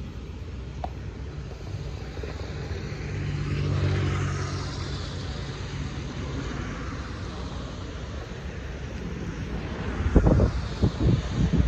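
Jet airliner's turbofan engines running as it taxis past close by, a steady hum and hiss that swells about four seconds in, its high whine sliding down in pitch. Near the end, gusts buffet the microphone with low thuds.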